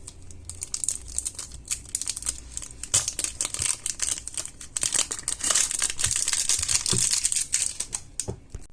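Thin plastic packaging crinkling and crackling as it is handled and pulled open by hand, busiest from about three seconds in.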